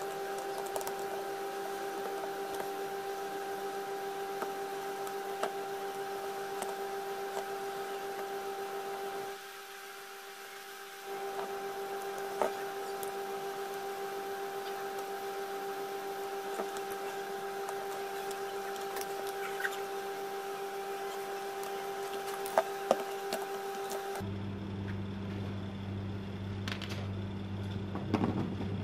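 Steady electrical hum with a few fixed tones, broken off for a moment about a third of the way in and switching abruptly to a lower hum near the end, with scattered faint clicks of screws and plastic housing parts being handled.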